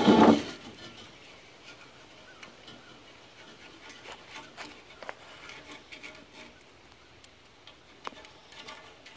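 Faint scratching and small clicks as soapstone is drawn around the edge of a plastic saddle template on steel pipe, marking the line for a saddle cut.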